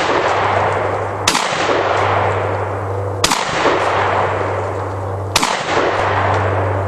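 Citadel 12-gauge semi-automatic shotgun firing Remington game loads: three shots about two seconds apart, each report dying away over about a second and a half, with the tail of a previous shot at the start. The gun cycles each round without a jam.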